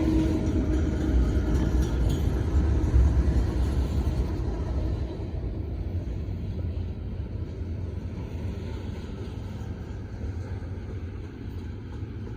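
Low rumble of a freight train going by, fading steadily as it moves away.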